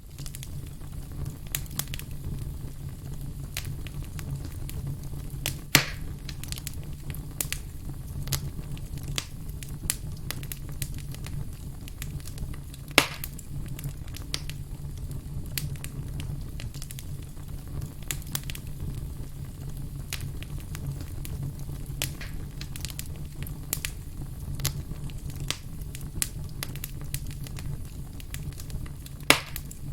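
Wood campfire crackling steadily, with dense small snaps and three louder pops: about six seconds in, about thirteen seconds in, and near the end. A low steady rumble runs underneath.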